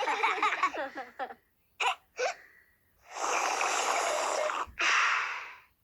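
Cartoon voices cheering 'yay', fading out about a second in, then two short squeaks and a long, noisy, unpitched sound effect in two parts.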